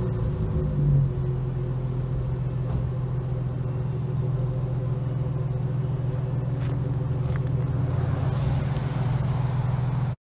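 V6 Dodge Challenger idling steadily through a 2.5-inch Y-pipe-back exhaust with dual Flowmaster Super 10 mufflers, with a brief swell about a second in. The sound cuts off suddenly near the end.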